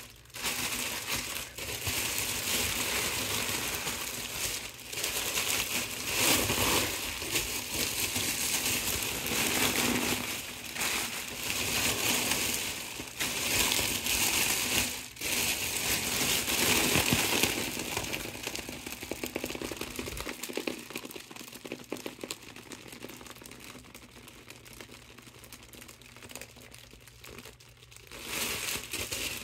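Mylar foil balloon crinkling and crumpling as hands squeeze it flat to push the air out. It is busier and louder for most of the time, softer for a stretch near the end, then picks up again.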